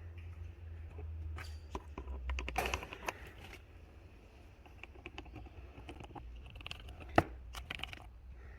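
Hands working on car trunk parts: scattered clicks, crinkling and scraping, with one sharp click about seven seconds in, over a low steady hum.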